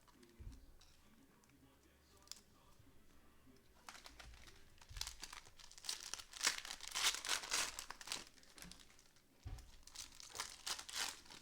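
Trading-card pack wrapper being torn open and crinkled by hand, in bursts of crackling about four seconds in and again near the end.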